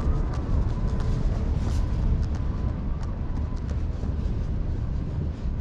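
Aerial fireworks: a continuous low rumble of shell bursts overlapped by many sharp crackles.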